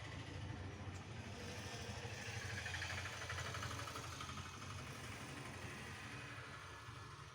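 A motor or engine running steadily, swelling louder a few seconds in and easing off again.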